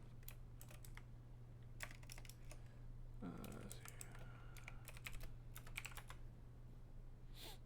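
Typing on a computer keyboard: faint, irregular runs of quick key clicks, over a steady low electrical hum.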